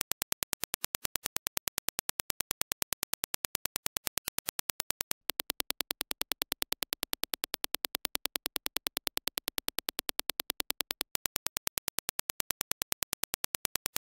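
Dirac impulse test signal: a rapid, even train of sharp clicks, about ten a second. About five seconds in, the clicks switch to the same impulse train as reproduced through the Turtle Beach Stealth Pro headset, with a faint low hum beneath. A little past eleven seconds they return to the clean reference clicks.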